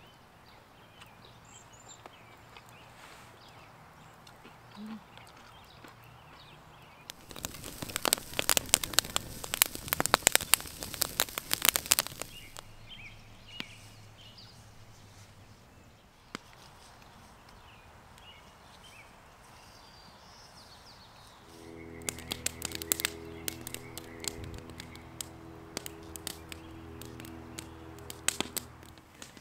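Wood campfire crackling and popping in two stretches, once for about five seconds and again from about two-thirds of the way in until near the end, the second time over a low steady hum. Between them, quiet open-air ambience with a few faint bird chirps.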